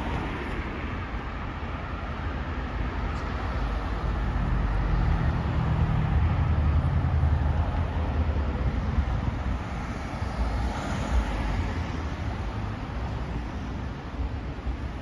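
Street traffic noise, with a vehicle passing close by: its low sound grows over a few seconds, is loudest around the middle, then fades away.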